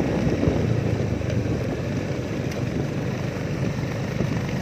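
Small motorcycle engine running at a steady speed along a rough gravel road, with road rumble underneath.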